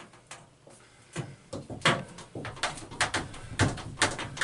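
Sliding shower door frame and header being fitted and pressed into place by hand: a series of irregular knocks and clicks, after a quieter first second.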